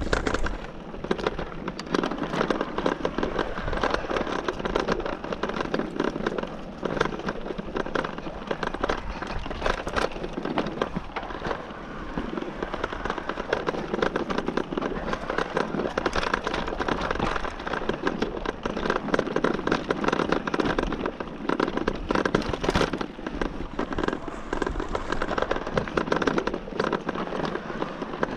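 Mountain bike tyres rolling over a dry dirt trail strewn with pine needles and small stones, making a continuous dense crackle of many small clicks and knocks.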